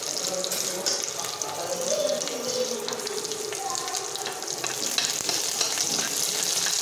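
Hot oil sizzling in a kadhai with chillies, curry leaves and mustard seeds: a tadka tempering, a steady hiss with many small crackles. A spatula stirs the pan near the end.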